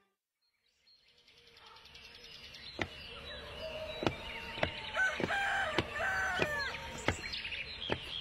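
A little over a second of silence, then an outdoor ambience fades in: small birds chirping and a rooster crowing, with a stretch of call notes in the middle. Footsteps click on hard ground about every two-thirds of a second as a man walks along the street.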